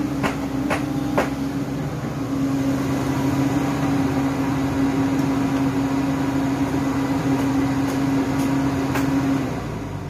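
SANY SY135C excavator's diesel engine running steadily with a strong hum, with several sharp clicks in the first second or so and another near the end. Just before the end the engine note drops to a lower, quieter idle.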